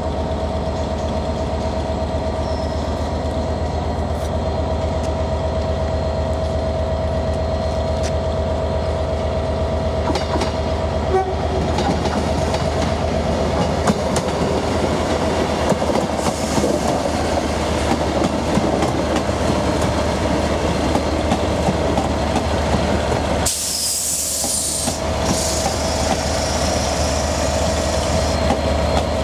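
Two coupled ScotRail Class 158 diesel multiple units arriving and running past slowly: a steady diesel drone with a held mid-pitched tone, and wheels clicking over the rails and pointwork as the train passes. A short loud hiss comes about three-quarters of the way through.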